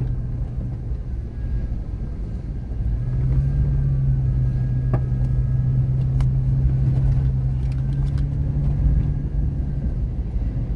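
Vehicle driving on a sandy dirt trail: a steady low engine drone with road rumble. The drone eases about a second in and picks up again about three seconds in, with a few sharp knocks and rattles along the way.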